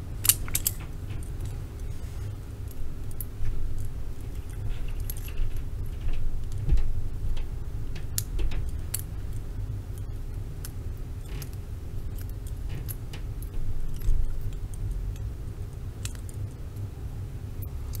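Chain-linked steel handcuffs clinking and rattling while a bobby pin is worked in the keyhole, with scattered small metallic clicks and scrapes, over a low steady hum.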